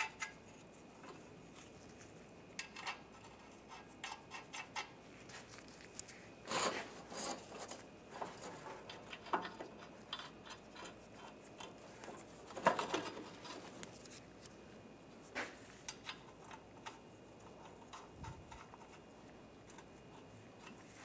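Faint scattered clicks, scrapes and rustles of nuts being threaded by hand onto exhaust flange studs, with a couple of louder metallic knocks.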